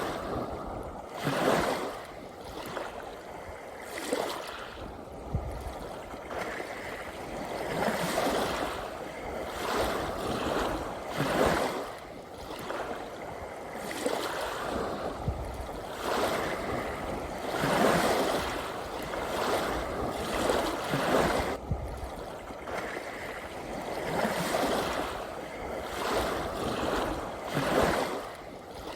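Small sea waves washing and splashing, with a fresh surge of water about every one and a half to two seconds.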